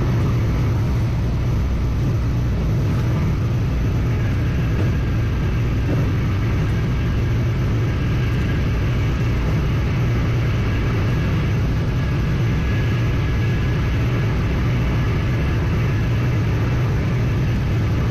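Steady road, wind and engine noise inside a Hyundai Accent's cabin, cruising at about 150 km/h: a constant low rumble with a hiss above it.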